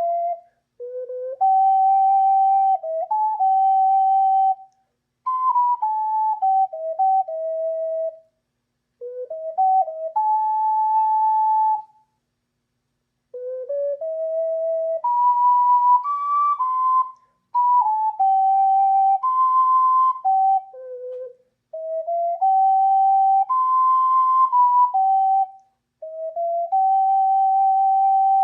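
Ocarina playing a slow melody alone, one clear, pure note at a time, in short phrases with brief silent gaps between them.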